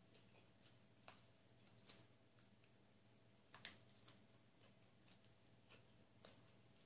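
Faint chewing of grilled chicken: soft wet mouth clicks and smacks about once a second, the loudest about halfway through.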